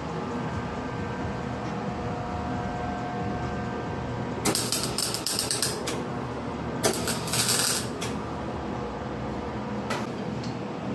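Two short bursts of welding crackle, each lasting about a second, as the weld is laid on the spots of an exhaust pipe joint. The bursts come over a steady low hum.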